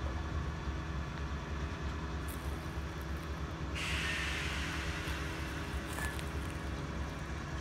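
JR West 105-series electric train standing at the platform, giving off a steady low electrical hum. About four seconds in, a sudden hiss of compressed air starts and fades over two to three seconds, as the train gets ready to depart.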